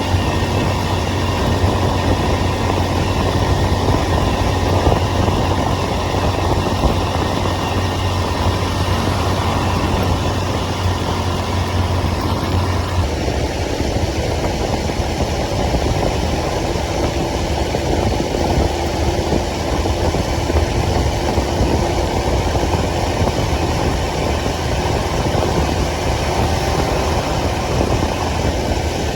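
Motorcycle engine running steadily as the bike is ridden; its note changes about halfway through.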